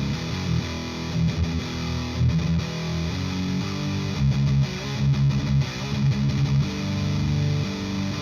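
High-gain distorted electric guitar riffing through a Driftwood Mini Nightmare tube amp on its channel 2, miked in an isolation cabinet loaded with a Celestion G12H-75 Creamback and a Vintage 30. It plays chugging low notes broken by short stops, with held chords in between.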